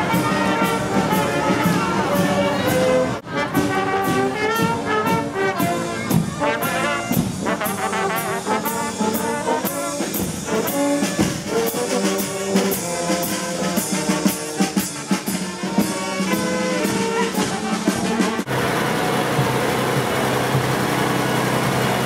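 Marching brass band playing a tune, with bass drum, snare drum and cymbals beating time. Near the end it cuts abruptly to a steady tractor engine running with crowd noise.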